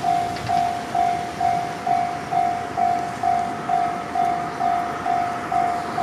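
Japanese railway level-crossing alarm ringing: an electronic bell repeating one clanging tone about twice a second, each stroke fading before the next. It signals that the barriers are down and a train is approaching.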